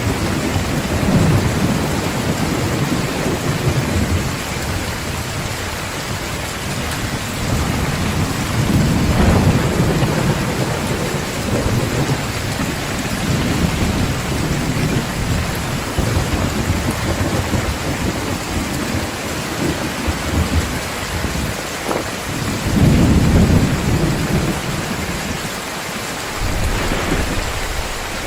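Heavy rain pouring steadily, with rolls of thunder rumbling underneath that swell and fade several times, loudest about nine seconds in and again near the end.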